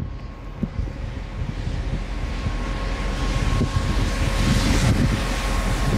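Box truck approaching on wet pavement, its tyre hiss swelling as it nears, with wind rumbling on the microphone. A faint steady high tone runs underneath.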